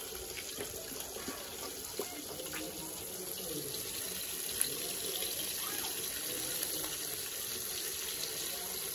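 Fish pieces frying in hot oil in a wok, a steady sizzle that grows a little stronger partway through, with a few light clicks.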